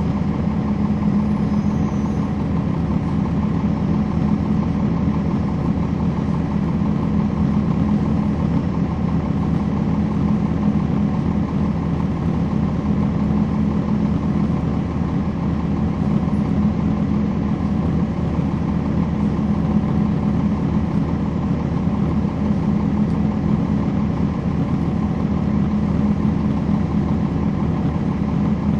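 Heard from inside a 2011 NABI 40-SFW transit bus: its Cummins ISL9 inline-six diesel engine runs with a steady, unchanging hum.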